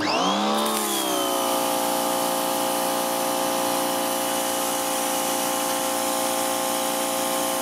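A Parkside PHD 170 C2 2400 W pressure washer kicking in as the gun is triggered, its motor and pump running steadily with the hiss of water spraying from a telescopic extension lance. It starts abruptly and its pitch settles within about a second.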